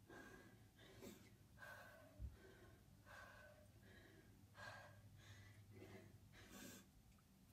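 Faint, quick breathing of a woman exerting herself through push-ups, breaths coming about once or twice a second. There is a soft low thump a little over two seconds in.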